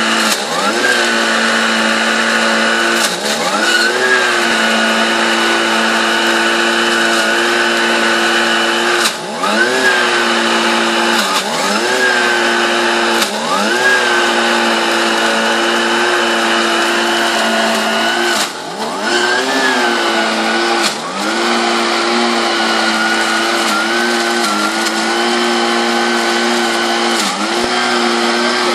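Handheld petrol blower-vacuum running at high speed as it sucks a stinging-insect nest into its bag, its engine pitch dropping sharply and climbing back every few seconds as the throttle is eased and opened again.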